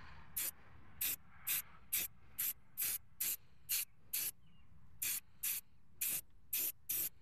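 Aerosol spray can of primer hissing in short spurts, about two a second, as it is sprayed onto a steel wheel, with a brief pause a little past four seconds in.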